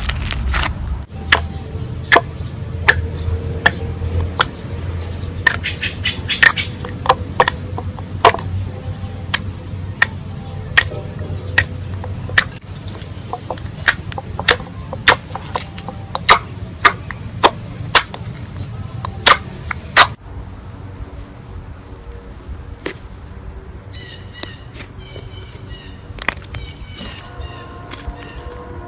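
Slime being squeezed and worked by hand, giving sharp, irregular pops and clicks of trapped air about once or twice a second. About twenty seconds in it cuts off suddenly to a quieter steady high-pitched tone with faint repeating chirps.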